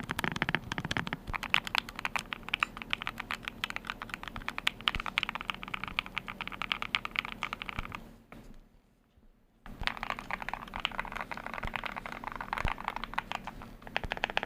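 Fast typing on a computer keyboard: a dense run of keystroke clicks that stops for about a second and a half just past the middle, then starts again.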